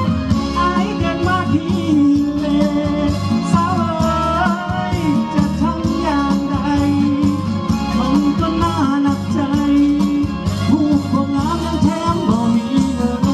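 A song sung in Lao by a solo voice over band accompaniment with a steady, full low end.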